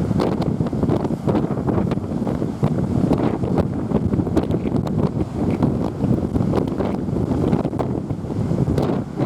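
Strong gusty wind buffeting the microphone, a loud, constant rumble with crackling pops.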